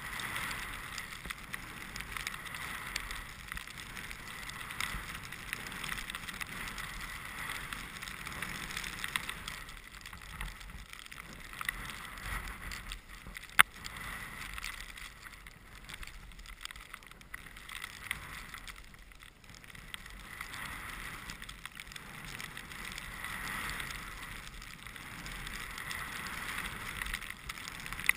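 Skis hissing through deep powder snow, the hiss swelling and fading in waves, over a low wind rumble on the microphone. One sharp click about halfway through.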